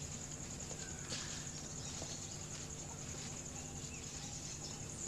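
Insects chirring steadily in a high, fine pulsing trill, over a low steady hum.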